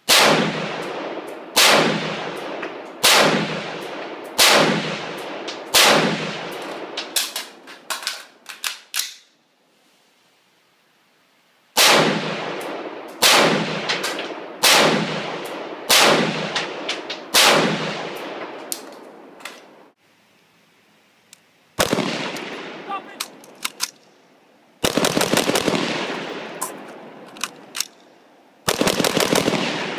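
AR-15 semi-automatic rifle firing, each shot ringing out with a long echo. Two strings of five deliberate shots are spaced about a second and a half apart, then comes a single shot, then two quick bursts of rapid fire near the end.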